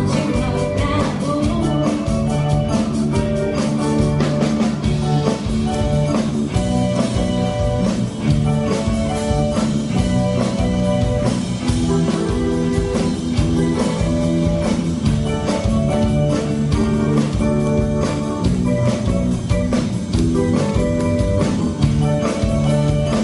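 Live band music: electric guitar and a drum kit playing a steady beat, with little or no singing.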